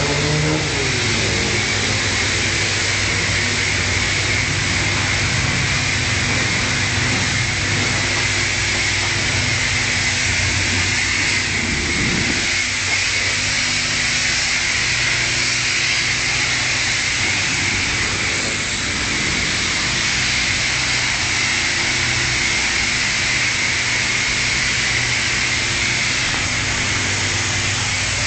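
High-pressure car-wash spray hitting a car, a steady hiss with a steady low hum underneath.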